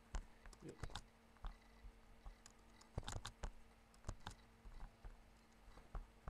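A dozen irregular clicks of a computer mouse, some in quick pairs, over a faint steady hum.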